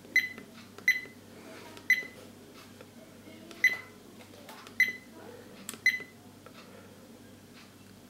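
Car dash cam's button beeps: six short, high beeps, one for each press of its buttons while stepping through the settings menu and back to the recording screen, spaced irregularly about a second apart, then none for the last two seconds.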